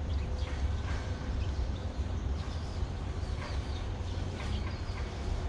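Steady low rumble of traffic on the elevated roadway overhead, with scattered short, high chirps on top.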